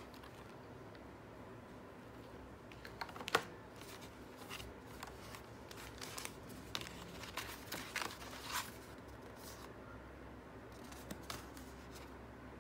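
Hands handling skincare packaging on a table: a clear plastic sheet-mask box and paper leaflets and sachets being moved, giving scattered light clicks and rustles, the sharpest about three seconds in, over faint room tone.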